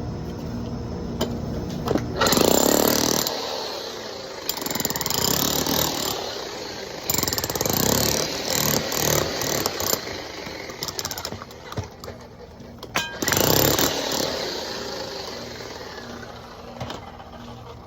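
Power demolition hammer chipping concrete in several loud bursts of rapid hammering, with short pauses between them.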